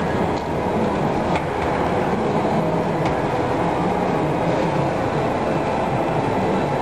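Steady, loud, low rumbling background noise, with a couple of faint clicks about a second and a half and three seconds in.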